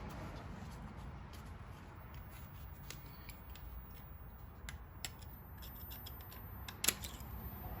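Small clicks and light rubbing from hands working metal cylinder-head parts and tools, with one sharp click about seven seconds in, over a low steady hum.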